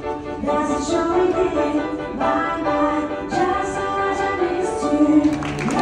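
Show music with a singing voice: a melody of held, slightly wavering notes over accompaniment, moving in phrases about a second long.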